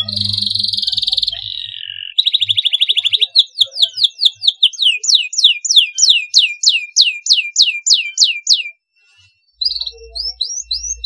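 Domestic canary singing: a fast buzzing trill, then a long run of quick downward-swooping whistles, about four a second. It breaks off briefly near the end before short rising notes start again.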